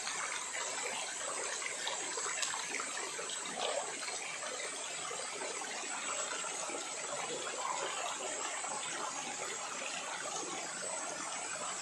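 Steady rush of a rocky mountain river flowing over stones and small falls.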